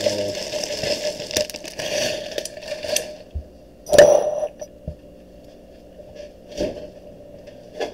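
Handling noise from the recording phone: rustling and light clicks for about three seconds, then one loud knock about four seconds in as the phone is set down on the countertop, with a faint steady hum underneath.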